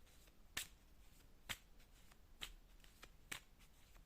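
Tarot cards being laid down one at a time, each landing with a short, sharp click; four clicks a little under a second apart.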